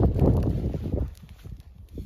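Wood fire crackling in an open steel fire pit, with scattered sharp pops, over a low rumbling noise that is loud for about the first second and then falls away.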